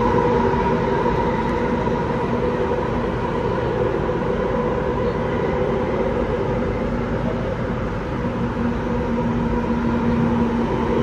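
Singapore Downtown Line metro train running through a tunnel, heard from inside the carriage: a steady rumble of wheels on rail with a continuous electric hum.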